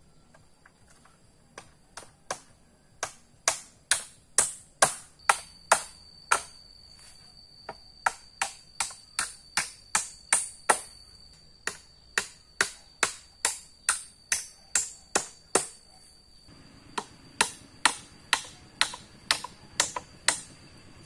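Repeated sharp chopping blows of a hand tool, about two to three a second, in runs with short pauses between them.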